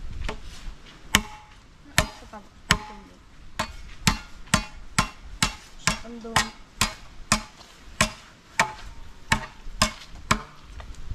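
Machete chopping into a length of green bamboo on a log, cutting the touch hole of a bamboo cannon. It makes sharp knocks, a few spaced out at first, then steady at about two a second, some with a short ring after the strike.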